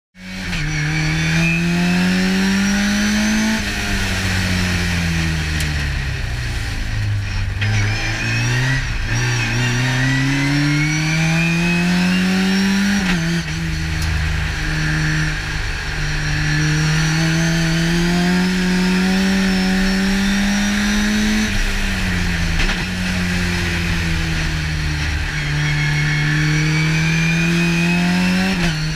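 Race car engine heard from inside the roll-caged cockpit, accelerating hard: the pitch climbs steadily through each gear and drops sharply at each upshift, about every eight or nine seconds. A few seconds in, the pitch falls as the car slows and changes down, then it climbs again.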